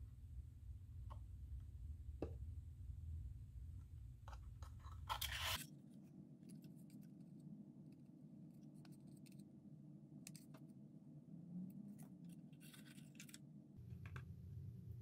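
Faint handling of a small cardboard ink box and its paper leaflet: scraping and rustling of card and paper with light taps, with a brief louder rustle about five seconds in and another around twelve to thirteen seconds.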